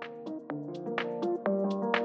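Outro background music: held pitched notes over sharp hits about every half second, growing louder.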